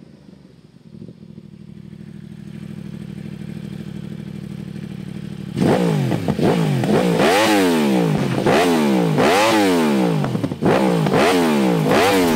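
2024 Yamaha R1's crossplane inline-four through a full titanium Akrapovič Racing Line exhaust with no dB killer, idling steadily, then from about five seconds in revved hard on the stand in a quick series of blips, each rising and falling in pitch, about one a second.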